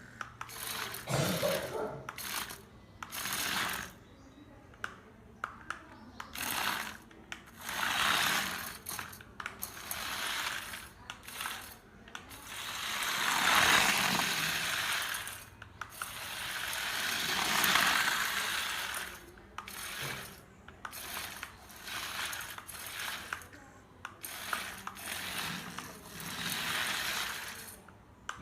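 Small plastic mechanism of a remote-control combine harvester model clicking and rattling, with several longer whirring swells, the two loudest about halfway through.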